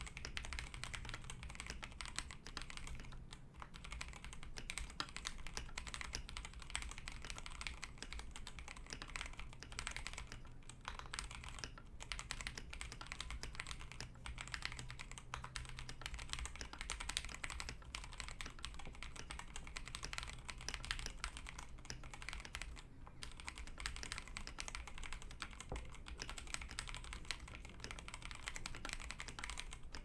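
Fast continuous typing on a Kbd67 Lite mechanical keyboard (polycarbonate plate, stock Gateron Milky Black linear switches, XDA PBT keycaps) on a thick deskmat: a dense run of key clacks with a few momentary pauses.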